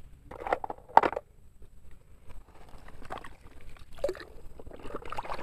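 Plastic toys being dug out of sand in a toy truck: faint scraping and rustling, with a sharp knock about a second in.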